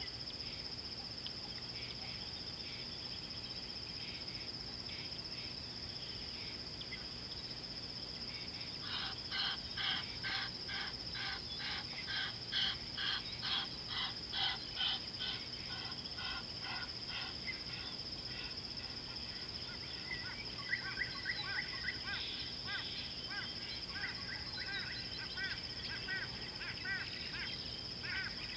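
Birds calling. A loud run of evenly repeated calls, about two a second, starts about nine seconds in and stops after about eight seconds. Quicker, higher chirping calls follow later, over a steady high-pitched insect drone.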